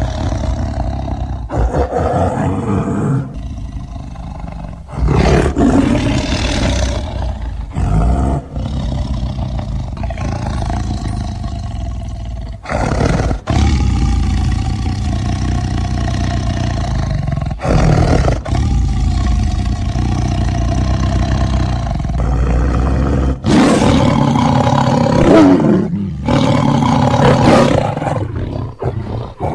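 Tigers roaring and growling in a string of separate recordings joined by abrupt cuts, the calls loud and heavy in the bass, some with a long held tone.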